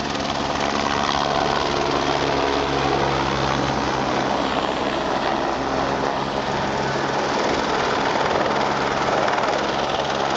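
Firefighting helicopter running steadily at low height while it draws water from a swimming pool.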